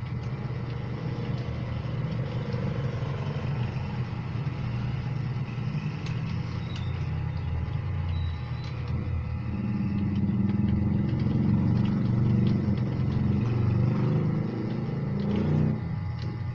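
A low, steady motor hum, like an engine running, that grows louder about ten seconds in and drops away shortly before the end, with a few faint clicks.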